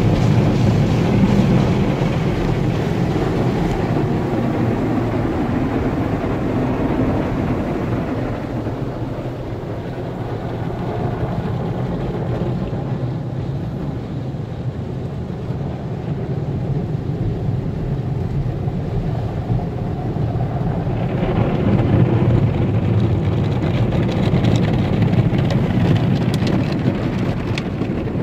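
Automatic tunnel car wash heard from inside the car's cabin: water and soap spraying against the windshield and body in a steady wash of noise. It eases off midway, swells again about two-thirds through, and cloth brush strips sweep the side window near the end.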